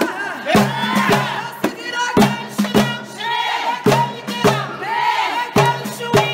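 A women's chorus singing a Moroccan hwariyat folk chant together, with hand-struck frame drums beating a quick, uneven rhythm under the voices.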